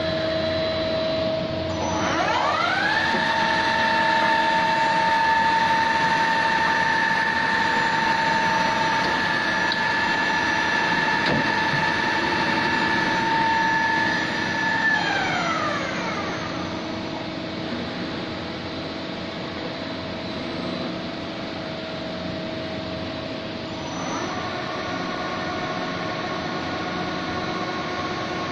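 Femco Durga 25E CNC lathe's spindle running up with a rising whine about two seconds in, holding a steady high-pitched whine, then winding down about fifteen seconds in. Near the end it starts again with a lower steady whine, all over the machine's steady running hum.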